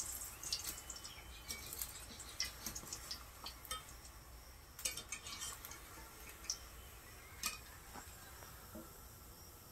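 Light, scattered clinks of a metal spatula against a karai as raw-banana koftas are turned over in the frying oil.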